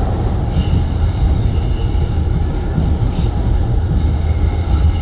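Wuppertal Schwebebahn suspension railway car running along its overhead rail, heard from inside the cabin: a steady rumble of the wheels on the rail with a faint high whine above it.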